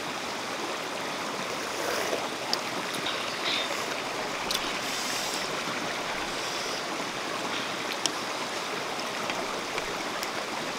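Shallow rocky stream running steadily over stones, a continuous rush of water, with a few sharp clicks over it.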